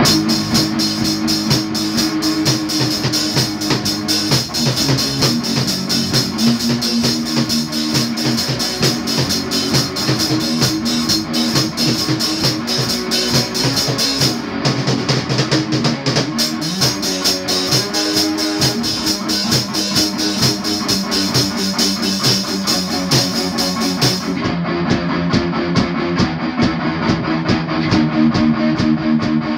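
A drum kit and an electric guitar playing rock together: steady drum beats with cymbals under sustained, changing guitar notes. The brightest cymbal sizzle drops away for the last few seconds.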